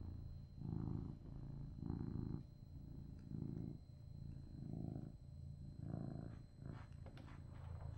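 Cat purring close to the microphone, a low rumble that swells and eases about every second and a bit, with a few light clicks near the end.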